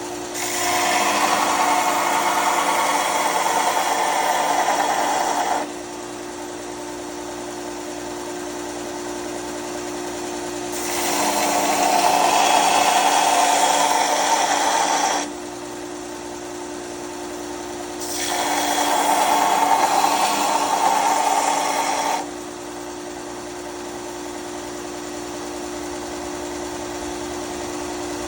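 Bauer belt grinder running steadily with a constant motor hum, while a workpiece is pressed against the moving abrasive three times, each grinding pass lasting about four to five seconds; a fourth pass begins near the end.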